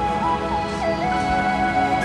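Background music: a slow melody of long held notes over a steady low tone.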